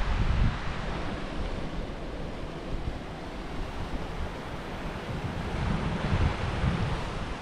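Wind buffeting the microphone of a handheld GoPro action camera: uneven low rumbling gusts over a steady rushing hiss.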